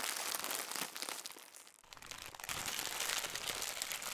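Intro sound effect: a dense, static-like crackling crinkle that goes with the glitching logo animation. It eases off about a second and a half in, then comes back.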